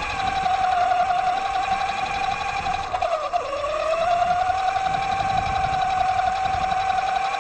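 Axial Yeti XL RC truck's electric motor and drivetrain whining steadily as it drives. The whine dips in pitch about three seconds in and then climbs back. A low rumble runs underneath.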